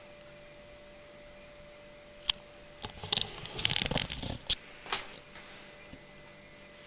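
A sharp click, then a second or two of clicking, rustling and knocking, like a large plastic RC car or its packaging being handled, over a faint steady hum.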